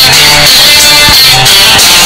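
Loud background music led by guitar.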